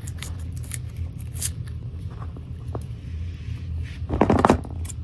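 Small clicks and snips of hand tools trimming stray strands of braided cable shielding, with a louder clatter of handling noise about four seconds in, over a steady low hum.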